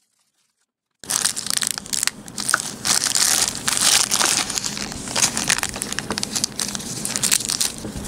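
Clear plastic packaging bag crinkling loudly as it is opened and a plastic door stopper is pulled out of it, starting about a second in.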